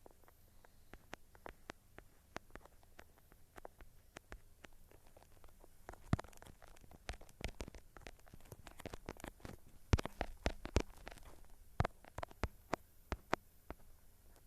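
Irregular series of sharp clicks and taps, a few a second, some louder than others, over a faint background.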